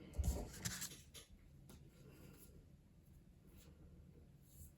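Pokémon trading cards being handled and slid against each other: a brief rustle with a light knock in the first second, then only faint scattered ticks of card handling.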